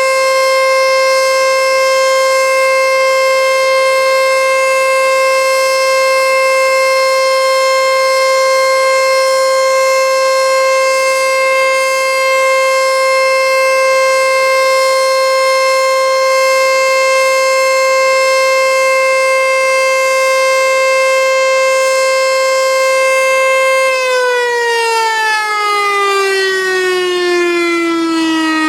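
Federal Signal electromechanical outdoor warning siren sounding a steady single-pitched tone in its test, then winding down about 24 seconds in, its pitch sliding steadily lower as the rotor slows.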